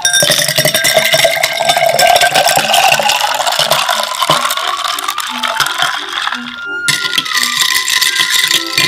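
Clear liquid poured over ice into a glass, the pitch of the pour rising steadily as the glass fills, stopping about seven seconds in. Then ice clinks against the glass as the drink is stirred with a straw.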